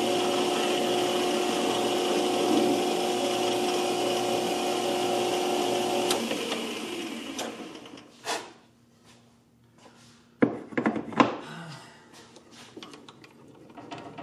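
Small metal lathe running with a steady tone, switched off about six seconds in and spinning down over a second or so. Then a few sharp metallic clicks and knocks as tooling on the lathe is moved.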